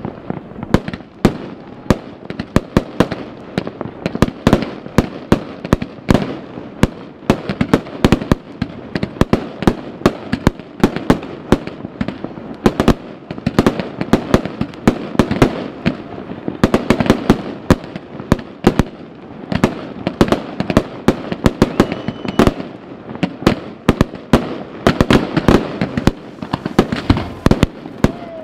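Aerial fireworks going off in a dense barrage: loud sharp bangs several times a second over a constant din of more distant bursts and crackle.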